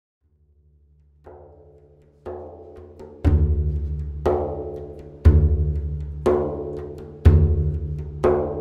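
Instrumental soundtrack music fading in: a low held note, then deep drum strikes about once a second that grow louder, every other strike heavier.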